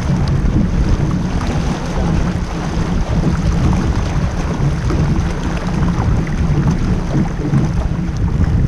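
Wind buffeting the microphone, with water washing along the hull of a small sailboat heeled over and sailing upwind through chop.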